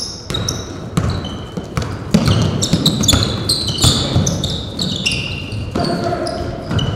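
Basketball game play: a ball bouncing repeatedly on a gym floor, with many short high squeaks from sneakers on the court.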